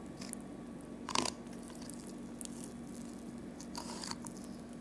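Knife slicing and scraping along a rabbit's rib bones while the meat is pulled back: a few short crunching scrapes, the loudest about a second in.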